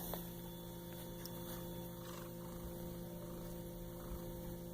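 Steady electrical mains hum, a constant low buzz with several fixed tones that holds unchanged.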